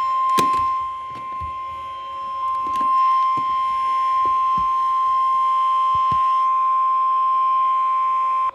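NOAA Weather Radio 1050 Hz warning alarm tone: one loud, steady high beep that cuts off suddenly, with scattered clicks of receiver static over it. The tone signals that an emergency warning broadcast is about to follow.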